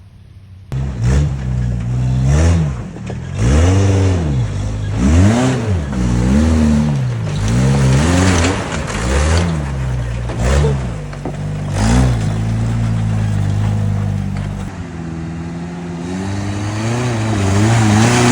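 Toyota off-road truck engine revving hard over and over, its pitch rising and falling with each throttle blip, settling to a steadier pull for a few seconds past the middle, then revving up again near the end. The sound starts abruptly less than a second in.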